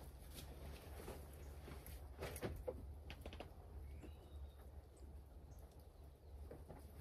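Faint footsteps of wellington boots on straw and a few light knocks and rustles as a cloth is lifted off a wooden gate.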